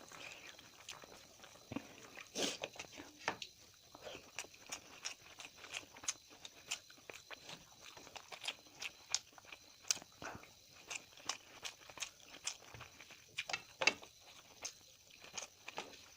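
Close-up eating sounds: a person chewing a meal of curry and rice, with many irregular wet clicks and smacks.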